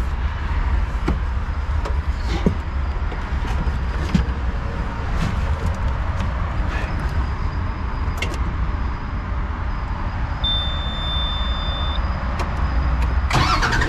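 Scattered clicks and knocks over a steady low rumble as the Komatsu machine's controls are handled, then a steady electronic beep for about a second and a half. Its diesel engine starts up suddenly near the end.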